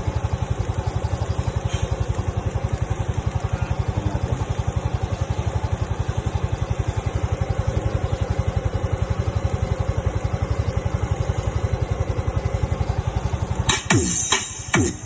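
Yamaha Mio Soul i 125 scooter's single-cylinder engine idling with a steady, fast, even putter. Near the end come two brief, loud sounds that sweep down in pitch.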